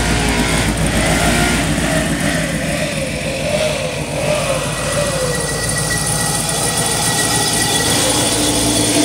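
Engine of a custom Chevrolet C10 pickup idling steadily, with a thin high whine over it.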